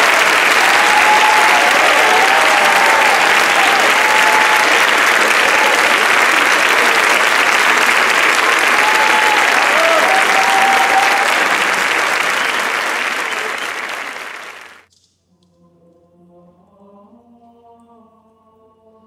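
Audience applauding loudly, with a few cheers rising and falling over it; the applause fades and cuts off suddenly about 15 seconds in. After that, a choir sings soft sustained chords.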